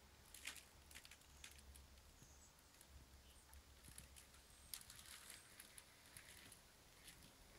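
Near silence: room tone with a faint low hum and scattered faint clicks and ticks.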